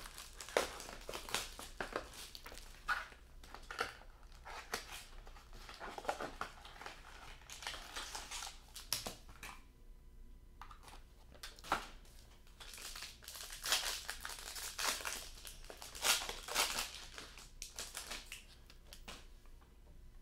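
Plastic shrink wrap being torn and peeled off a sealed box of trading cards, crinkling in irregular bursts, then the cardboard box being opened and handled.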